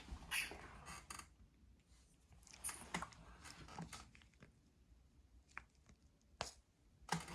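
Lego bricks being handled and fitted together: a scattering of small plastic clicks and rustles.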